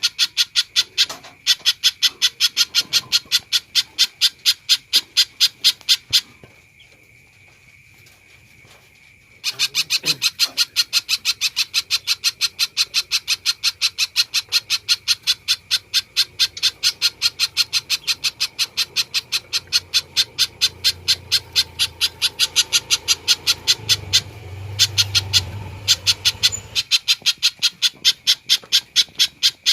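Spiderhunter calling a long series of sharp, evenly repeated notes, about five a second, with a pause of about three seconds a quarter of the way through.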